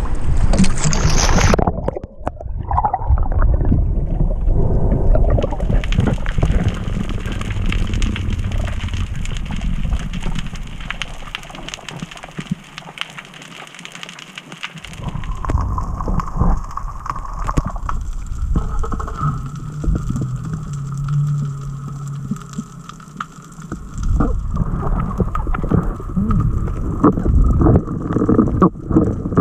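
A diver's camera going under the surface about two seconds in with a splash, then muffled underwater sound: a low rumble of water moving past the housing with scattered sharp clicks and crackles. A faint steady hum comes in during the second half.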